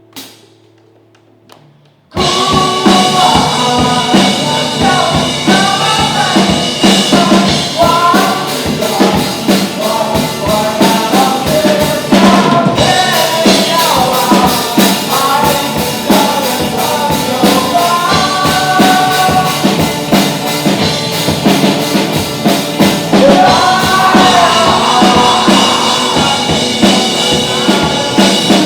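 Rock song with a full drum kit, bass, guitars and singing, starting suddenly about two seconds in after a quiet moment, then playing on loudly.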